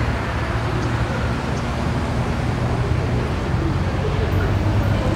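Diesel freight locomotive approaching, a steady low engine rumble.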